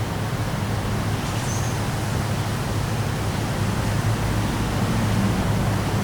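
Heavy wind and rain in a storm: a steady rushing noise with a low rumble underneath.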